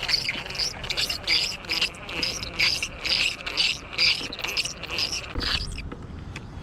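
Squeaky fishing reel being cranked on a steady retrieve. It gives a high squeak on each turn of the handle, about three times a second, and stops near the end. The squeak and grind come from the reel itself.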